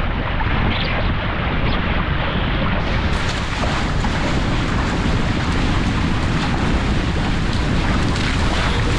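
Wind buffeting the microphone and water rushing and splashing past the hulls of a Paper Tiger catamaran sailing fast. The noise is steady and dense and turns brighter about three seconds in.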